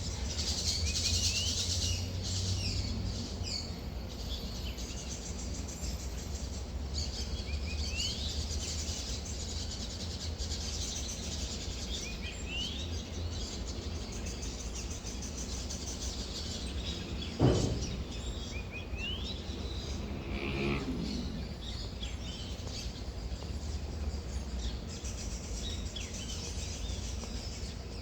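Birds chirping, with short rising calls repeated every few seconds over a steady low rumble. About two-thirds of the way through, a sudden loud sound sweeps down in pitch, followed shortly by a brief lower call.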